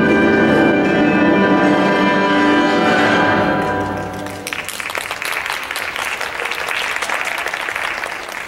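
Orchestral music plays and ends about four seconds in, giving way to audience applause.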